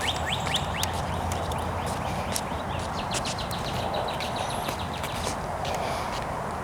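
Birds calling: a rapid run of short chirps and sharp clicks, over a steady low hum.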